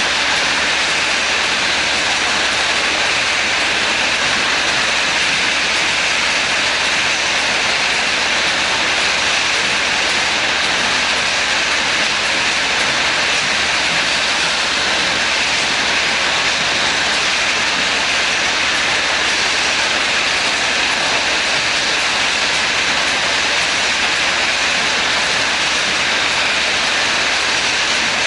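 A rotary bottle-filling machine and its slat-chain conveyor running, a steady, even machine noise with no pauses or changes.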